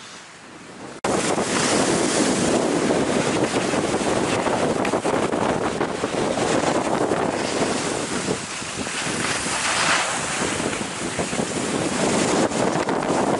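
Wind buffeting the microphone while moving fast down a groomed ski slope, mixed with the hiss of sliding over packed snow; the loud noise starts abruptly about a second in.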